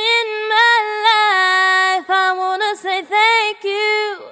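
A woman's voice singing long held notes with small melismatic runs, one voice alone, pausing briefly a few times.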